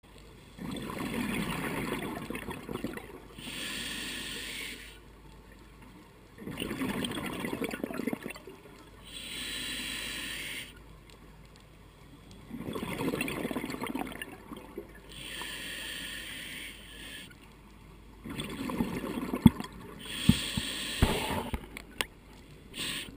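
A scuba diver breathing through a regulator, with about four breath cycles: each one a long burble of exhaled bubbles, then a shorter hissing inhale. Near the end come a few sharp clicks and knocks, the loudest sounds here.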